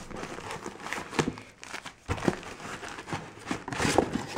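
Packing paper crinkling and rustling as paper-wrapped bundles of silver bars are handled and set down on a wooden table, with several sharp knocks spread through.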